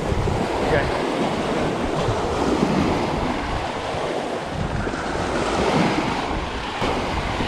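Small waves breaking and surf washing over the shallows around the angler's legs, with wind buffeting the microphone.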